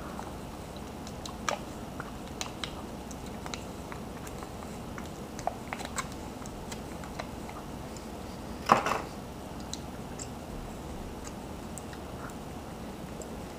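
Close-up mouth sounds of a man eating chicken wings and licking his fingers: scattered small wet clicks and lip smacks over a steady background hiss, with one louder, brief smack a little before nine seconds in.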